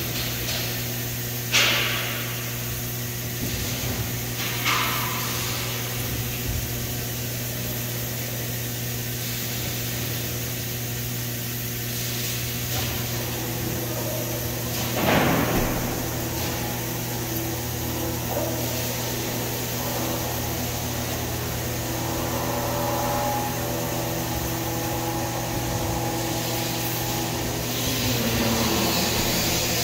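Trumpf TruMatic L3030 CO2 laser cutting machine running while cutting sheet metal: a steady machine hum under an even hiss, with three brief sharp bursts, near the start, about five seconds in and about fifteen seconds in.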